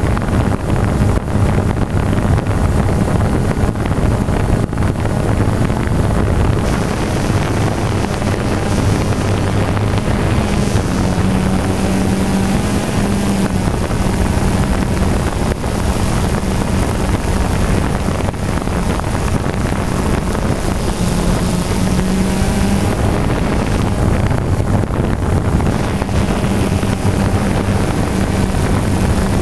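DJI Phantom 2 quadcopter's four electric motors and propellers humming steadily in flight, heard through the camera on board, with wind rushing over the microphone. The pitch of the hum shifts a little a few times.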